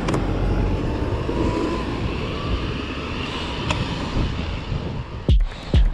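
Steady, low, rumbling road noise with no clear single source. About five seconds in, a music track with a heavy, regular beat starts.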